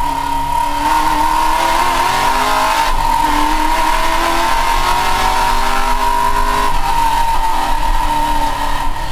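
Holden VK Commodore engine heard from inside the cabin during a sprint run, its pitch climbing under hard acceleration and dropping at gear changes about 3 and 7 seconds in. A steady high whine sits over the engine.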